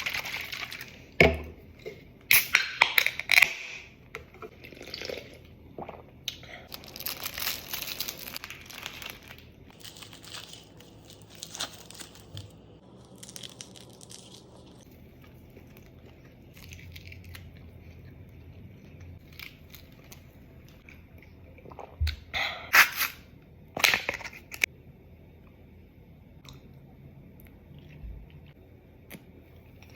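Close-up eating sounds: plastic food packaging crinkling and tearing open, with chewing and biting in between. The crackling comes in clusters, loudest in the first few seconds and again near the three-quarter mark.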